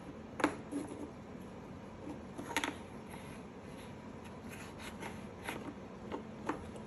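Wooden puzzle pieces clicking and knocking against a wooden peg puzzle board as they are handled and fitted into their slots: a few scattered light taps, with a small cluster of louder knocks about two and a half seconds in.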